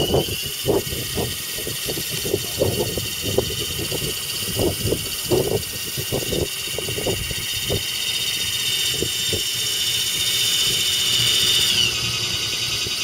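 Electric motor and gearbox of a radio-controlled 6x6 scale crawler truck whining steadily as it crawls, the pitch rising right after the start and falling away near the end as it slows. Irregular knocks and crunches come from the tyres over the gravelly dirt, mostly in the first half.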